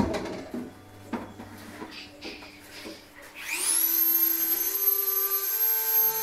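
Tools clicking and knocking on a workbench, then a Dremel rotary tool switching on about three and a half seconds in, its high whine rising quickly to full speed and holding steady, ready to sharpen a mower blade.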